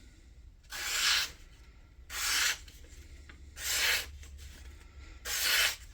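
Four slicing strokes of a Kansept Thoth's factory-edged 20CV blade through paper, each a short hiss about half a second long and evenly spaced. The cuts are clean: the edge is super sharp.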